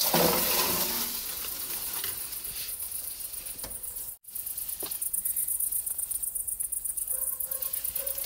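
Crickets chirping steadily, with a louder scraping noise in the first second and scattered rustles and light knocks of someone squeezing through a gap into a basement.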